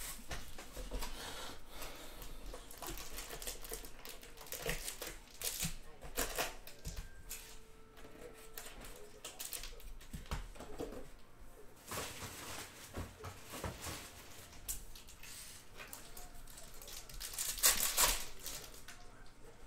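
Clear plastic shrink wrap from a trading-card box being torn and crinkled by hand, in a run of small crackles and clicks, with a louder burst of crinkling near the end.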